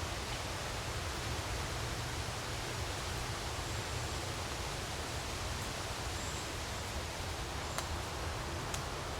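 Steady countryside wind blowing with a low rumble and rustling. Two faint clicks come near the end.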